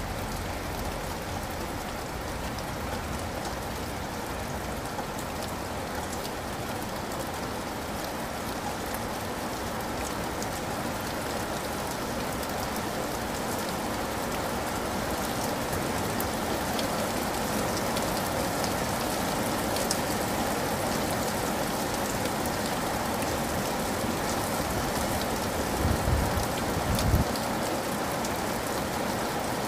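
Steady rain: an even hiss with scattered fine drop ticks, growing slightly louder. Two brief low thumps come close together near the end.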